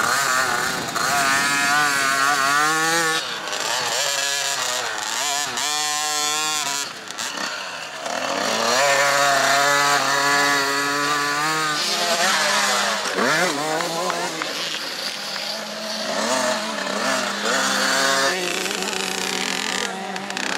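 Small two-stroke engines of children's mini motocross bikes revving hard on a dirt track, one bike after another. The buzzing pitch climbs and drops again and again with throttle and gear changes.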